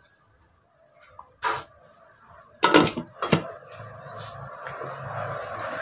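A glass pot lid set down on a ceramic cooking pot: a single knock about a second and a half in, then a short clatter of lid against rim about three seconds in, the loudest sound. After it a steady hiss with a low hum builds up.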